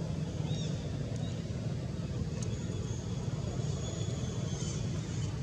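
Steady low outdoor rumble, with a few faint high chirps and a thin high whine through the middle.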